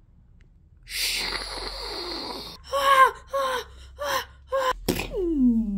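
Voiced flamethrower effect: a hiss lasting about two seconds, then five short pitched cries and a long scream falling in pitch near the end, with a sharp click just before it.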